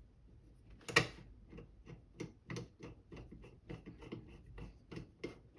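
A run of small, sharp clicks at about three a second, one louder click about a second in: a hand screwdriver clicking as it drives a screw back into the plastic monitor casing.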